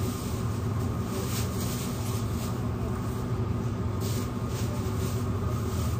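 Steady low machine hum, with faint light rustling here and there.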